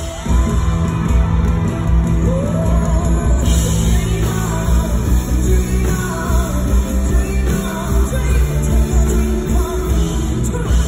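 A live rock band plays a power ballad loudly in an arena, with heavy bass and drums and a female lead vocal singing a few long, gliding notes over it. It is heard from among the audience.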